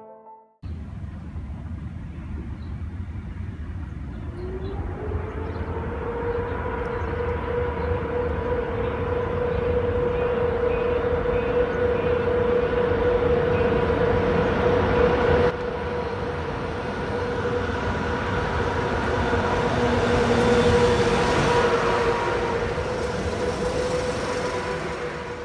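Locomotive-hauled passenger train approaching and running past close by: a steady rumble of wheels and carriages, growing louder as it passes. A steady whine comes in with a short rise in pitch about four seconds in and holds through the passage.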